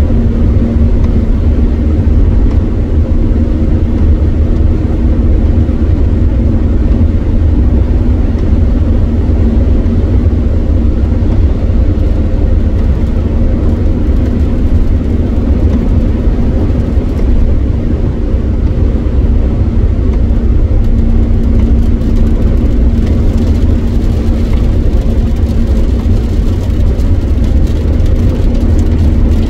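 Steady cabin noise of a car at motorway speed on a rain-soaked road: a loud low rumble of tyres on the wet surface and engine, with a constant hum over it.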